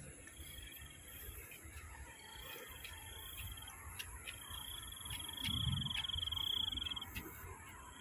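Insect trilling in repeated bouts at one steady high pitch, each lasting one to two and a half seconds. The longest and loudest bout comes about two-thirds of the way in, over a constant thin high hum.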